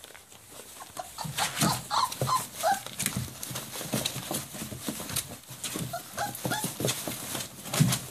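Five-week-old puppies giving short, high whimpering squeaks in two brief bursts, over the constant rustle and crinkle of the shredded paper towels they are scrambling through.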